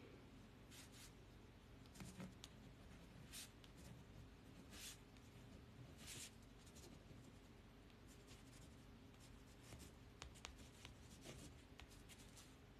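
Faint pen writing on paper: short scratchy strokes in irregular spurts.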